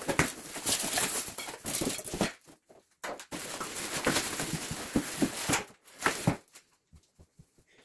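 Clear plastic wrap crinkling and rustling as it is pulled off a boxed steel table, mixed with cardboard packing being handled and scraped. The handling stops about six seconds in, leaving a few faint taps.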